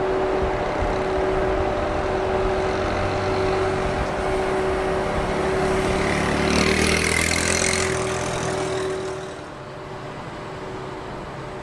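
EF81 electric locomotive and its train passing over a level crossing: steady running noise with a steady hum, swelling with extra hiss for a couple of seconds past the middle, then dropping off sharply about nine seconds in.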